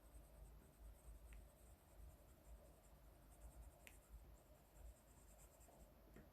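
Faint scratching of a drawing tool on paper, with a couple of soft ticks.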